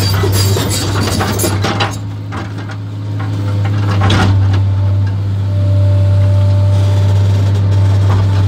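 JCB JS 235 HD tracked excavator's diesel engine running steadily with a deep hum, heard from inside the cab, with clattering in the first two seconds and again about four seconds in as the arm and bucket swing.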